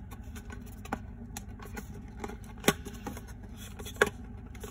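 Fingers prying at the tucked end flap of a tight-fitting cardboard toy box, with scattered clicks and crinkles of the card, the sharpest about two and a half and four seconds in. The flap is stuck so tight that it has to be forced and torn to open.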